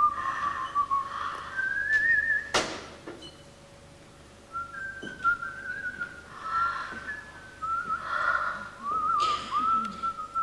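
Someone whistling a slow, wavering tune in short phrases with small trills, with a sharp knock about two and a half seconds in and a brief pause a little later.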